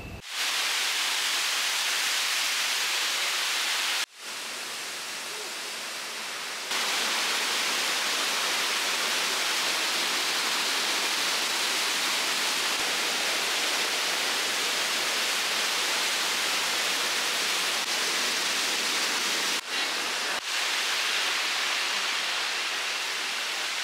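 Waterfall and rocky stream rushing: a steady hiss of falling water. It drops out briefly about four seconds in, is quieter for a few seconds after that, and dips twice near twenty seconds.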